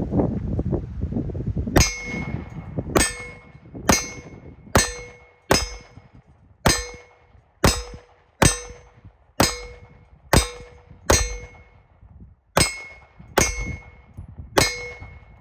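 Browning BDM 9mm pistol fired about fifteen times at a steady pace, roughly a shot a second with a brief pause about three-quarters through. Each shot is followed by the clear ring of a steel target being hit.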